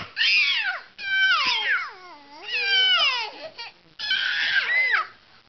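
Young children squealing with laughter: four high-pitched shrieks, each sliding down in pitch, with short breaks between them.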